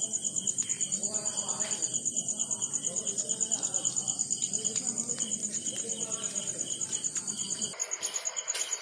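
Crickets chirping: a steady, high-pitched trill pulsing about ten times a second.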